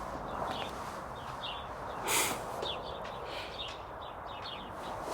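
Small birds chirping: many short, high chirps over a steady background hiss. A brief breathy rush of noise about two seconds in is the loudest moment.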